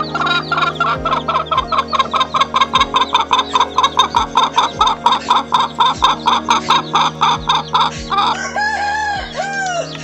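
Philippine native hen clucking in a fast, even run of short calls, about five a second, then giving two longer rising-and-falling calls near the end. She is a laying hen, and her keeper takes this call to mean she wants a rooster.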